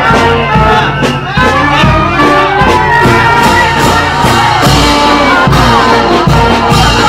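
Street brass band with sousaphones playing loud, upbeat marching music with a steady beat.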